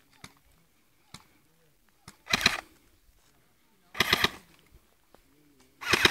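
Airsoft gun firing three short full-auto bursts of rapid clicking shots, spaced a couple of seconds apart, with a few faint single clicks in between.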